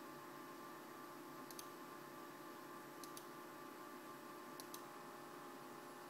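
Computer mouse button clicked three times, about a second and a half apart, each click a quick press-and-release pair, over a faint steady hum.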